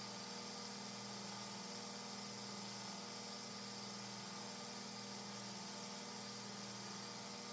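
Belt grinder running with a steady hum, as a heat-treated steel knife blade is finish-ground on its abrasive belt in four short passes, each a brief high hiss about a second and a half apart.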